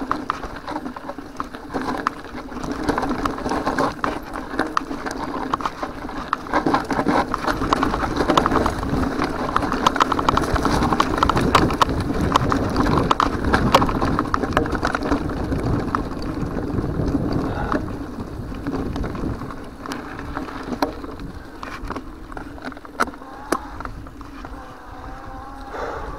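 Mountain bike rattling and clattering as it rolls downhill over a rough gravel and grass track, with dense knocks from the frame and handlebar-mounted gear. It grows quieter in the last several seconds as the ground smooths out onto a paved road.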